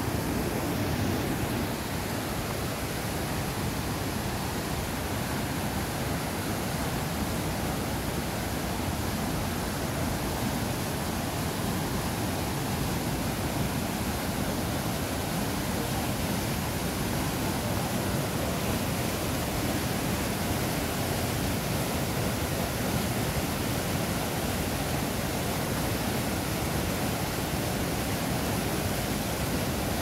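Rushing whitewater of a fast, rocky mountain river: a steady, unbroken wash of water noise.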